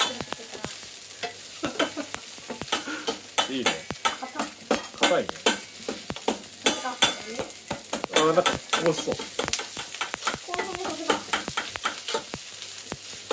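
A cooking utensil stirring food in a pan on the stove, knocking and scraping against the pan in many short, irregular clicks, over the steady hiss of the food frying.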